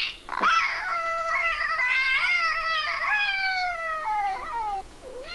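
Cat yowling: one long, wavering cry of about four seconds that drifts slowly down in pitch, after a short swooping cry at the start.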